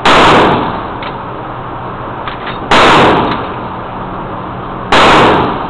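Three loud gunshots, the first at the very start and the others a little over two seconds apart, each ringing briefly off the walls of an indoor shooting range.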